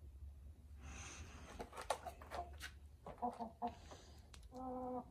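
Gamefowl rooster clucking: a few short low clucks about three seconds in, then a longer held cluck near the end, after a few sharp clicks in the first half.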